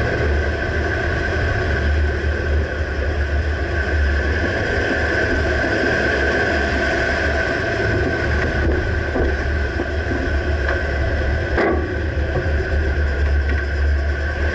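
2009 Dodge Ram pickup on the move, with a steady low rumble and a few clunks in the second half, the loudest near the end. The clunk comes from the rear right suspension, though its exact cause is not pinned down.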